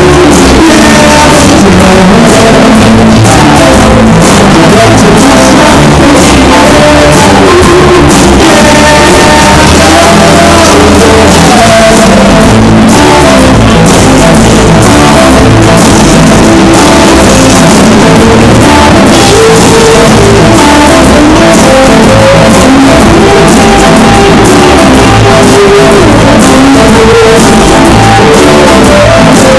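Rock band playing loud, with guitar and drums and some singing.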